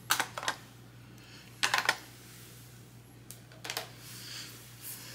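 Hard plastic ink pad cases clicking and knocking as they are handled, opened and set down: a few sharp clicks in the first half-second, a cluster of clicks a little under two seconds in, and a few more around three and a half seconds.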